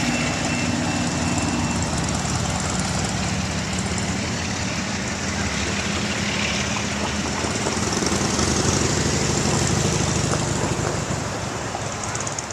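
Freight train passing: diesel locomotive engine running with a low hum over the steady rumble and hiss of steel wheels on the rails.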